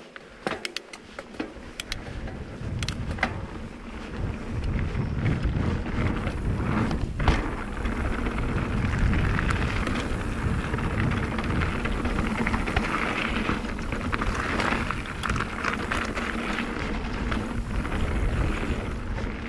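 Mountain bike riding a dry, stony dirt trail: tyres crunching and hissing over grit and loose stones, with the bike rattling and knocking over bumps and wind rumbling on the camera microphone. It builds over the first few seconds as the bike picks up speed, then holds steady.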